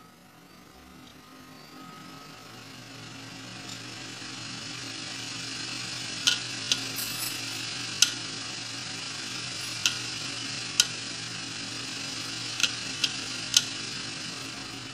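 Hard disk drive running with its cover off: the platter's whir and hum grows louder over the first six seconds, then the head actuator arm gives about eight sharp clicks at irregular intervals as it seeks.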